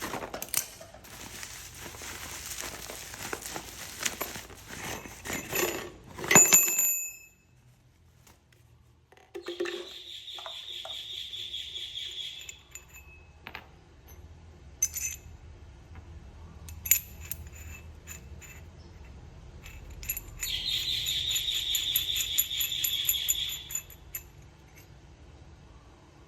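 Unboxing handling sounds: packaging rustling and crinkling, then metal parts of a hole saw kit clinking and scraping, with two longer stretches of scraping and a few sharp clicks.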